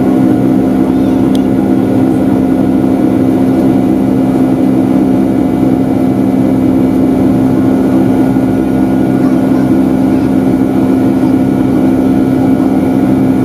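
Boeing 757-200's Rolls-Royce RB211 engines at climb thrust, heard inside the cabin as a loud, steady drone with several constant humming tones over rushing air noise.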